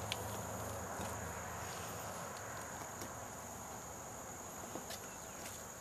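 Steady, high-pitched drone of a chorus of insects, with a few faint ticks.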